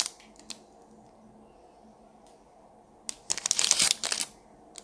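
A clear plastic packaging bag crinkling in the hands for about a second, starting about three seconds in, with a faint click earlier.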